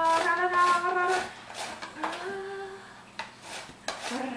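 A person humming a wordless tune in held, sliding notes. A shorter note follows a moment later, then two sharp clicks near the end.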